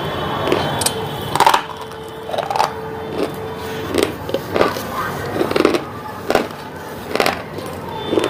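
A mouth crunching and chewing a hard, brittle bite of food: irregular crunches and clicks, the loudest about one and a half seconds in, then softer chewing.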